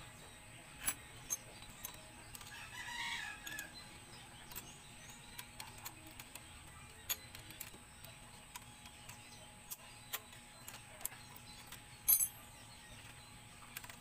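A rooster crows once, for about a second, roughly three seconds in. Sharp metal clinks of hand tools on concrete come here and there, the loudest near the end.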